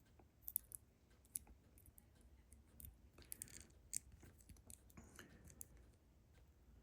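Faint clicks and taps of plastic Lego pieces being handled and pressed together, with a brief rustle about three seconds in.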